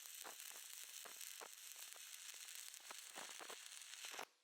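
Stick welding arc from a 3/32 7018 low-hydrogen rod on mild steel: a steady crackling sizzle with sharp irregular pops, which cuts off suddenly just after four seconds in as the arc is broken.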